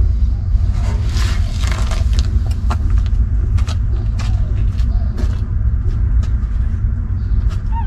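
Newborn puppies nursing at their mother, with many short suckling clicks and a few faint squeaks, over a steady low rumble that is the loudest sound throughout.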